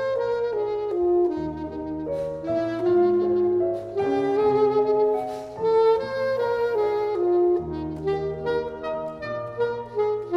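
Classical saxophone playing a legato melody from note to note over piano accompaniment, the piano holding low chords that change every second or two.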